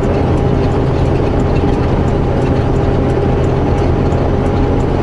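Semi truck's diesel engine running steadily under load, heard inside the cab, with a constant drone and a faint regular ticking about three times a second.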